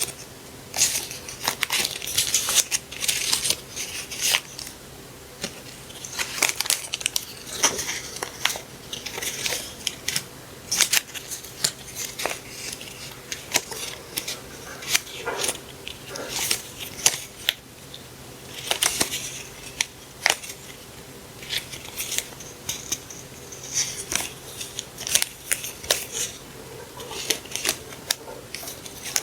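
Paper and packaging being handled up close: a continuous run of rustling and crinkling with sharp little clicks and taps.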